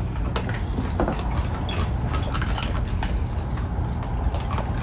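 Raccoons crunching dry kibble: scattered crisp crunches and clicks over a steady low rumble.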